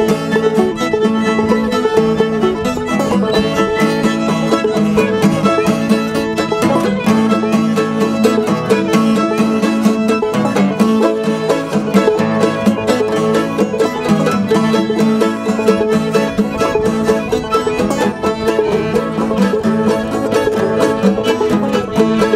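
Instrumental bluegrass-style string music with fast plucked notes, banjo-like, and a fiddle.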